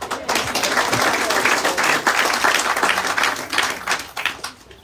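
Audience applauding, thinning out to a few last claps near the end.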